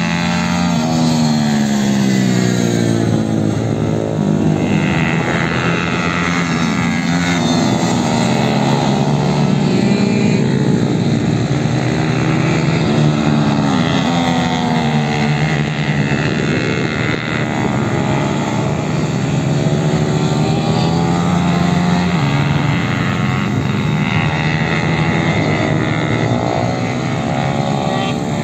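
Several small-displacement motorcycle engines, among them a Malcor Super Racer 155 supermotard, running laps. Their pitch rises and falls over and over as the riders accelerate and back off, with more than one engine heard at once.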